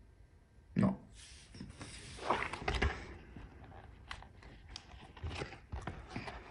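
Hands demoulding cured epoxy resin pieces from a silicone mould: a sharp knock about a second in, then a flurry of rubbing and knocking sounds and scattered small clicks as the mould is flexed and the pieces are pressed out.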